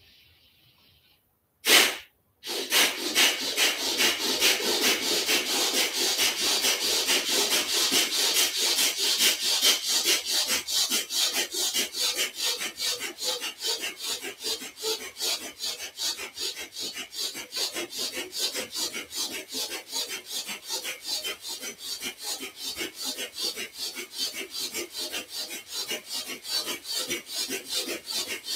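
A man doing bhastrika pranayama (bellows breath): rapid, forceful breaths in and out through the nose at a steady rhythm of about three a second. It starts with one sharp breath about two seconds in, and the breaths ease a little after the first ten seconds.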